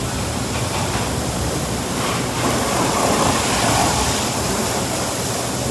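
Automatic car wash spraying a car: a steady rushing hiss of water jets, swelling a little louder about halfway through.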